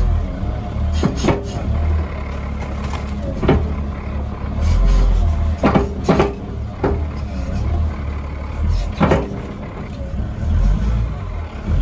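Wheel loader's diesel engine running steadily, heard from inside the cab, with a handful of sharp knocks and clanks as the raised bucket tips its load into a trailer.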